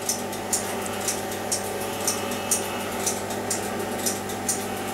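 Valve RF signal generator and frequency counter running on the bench: a steady hum with short, even ticks about twice a second.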